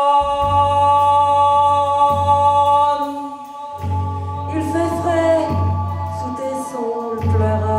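Live stage band music: a sustained keyboard chord over long low bass notes. From about halfway, a voice sings a line that slides down in pitch.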